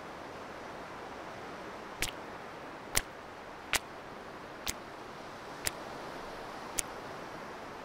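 Six hard-soled footsteps on a tiled floor, sharp and about a second apart, over a steady hiss.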